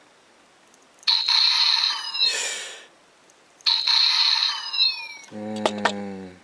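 Electronic sound effects from the VS Changer toy's small speaker as a Tank Full Bottle is held to its exposed recognition sensor. There are two bright bursts, each with a high steady tone and falling sweeps, then a buzzy held tone near the end.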